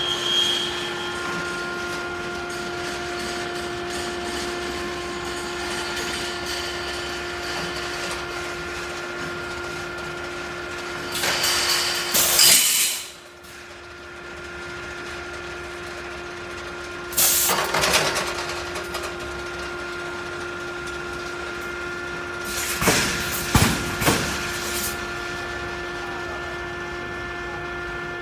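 Pneumatic reinforcement steel mesh welding machine running: a steady electrical hum broken by three louder bursts of noise, roughly six seconds apart.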